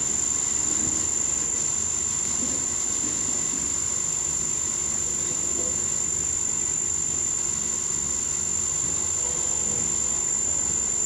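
Underwater treadmill running: a steady, unbroken high-pitched whine over a low mechanical hum.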